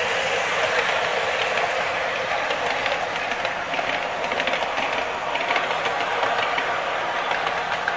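KATO HO-scale KiHa 65 model diesel railcar running along straight track: a steady rolling rattle of wheels and motor, with light clicks from the rail joints.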